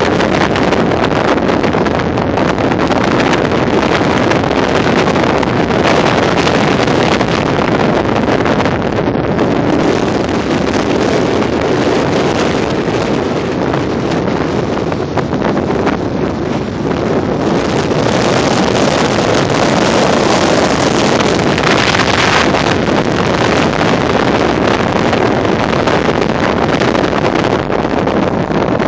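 Strong storm wind buffeting the microphone, a loud, steady rushing roar that eases a little around the middle and blows harder a bit past halfway.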